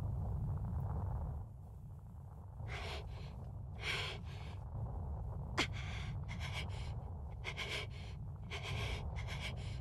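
Short, heavy breaths and gasps, several in a row, over a steady low rumble, with one quick falling whistle about halfway through.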